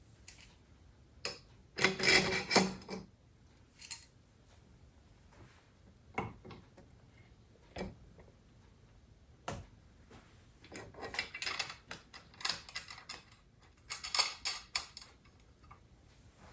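Small metal motorcycle handlebar fittings being handled and fitted by hand: separate clicks and short clattering rattles, loudest about two seconds in and again in a busy run from about ten to fifteen seconds in.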